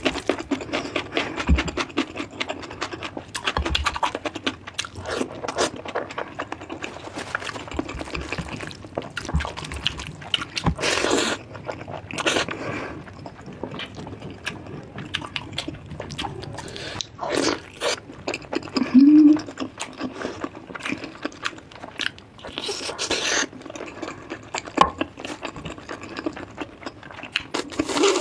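Close-up eating sounds: wet chewing and mouth noises as curry and rice are eaten, with many small clicks and scrapes throughout and a few louder bursts.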